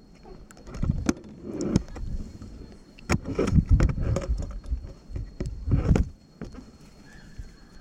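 Canoe paddling: irregular swishes and splashes of paddle strokes in the water, with several sharp knocks.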